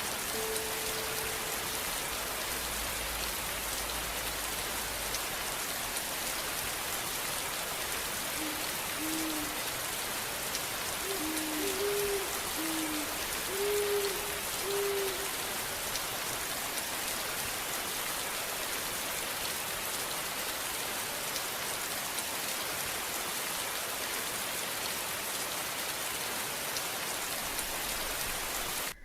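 Steady rain falling, an even hiss with no let-up. A few short low-pitched notes are heard between about a third and halfway through.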